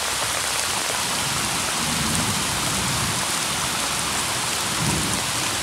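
Heavy thunderstorm rain pouring down in a steady hiss, with raindrops striking the microphone as fine clicks. Low rumbles of thunder come about two and five seconds in.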